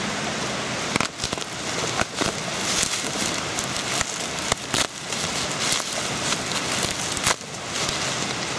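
Parcel wrapping being torn and pulled open by hand: continuous crinkling and rustling with irregular sharp snaps and cracks.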